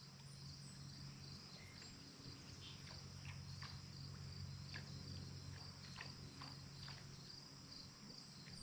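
Faint, steady high-pitched chirping of insects, with a low steady hum underneath and a few faint ticks.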